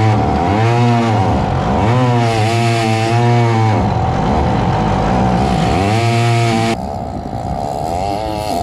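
Stihl 088 chainsaw engine, a big two-stroke single, driving a longtail boat propeller at high revs. The revs sag and climb back several times under the propeller's load, which the owner puts down to a prop too aggressive for the engine. About seven seconds in, the engine sounds quieter and farther off.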